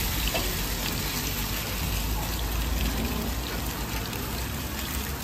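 Steady sizzling hiss with faint scattered crackles, as of shaved doner meat and oil frying on hot metal.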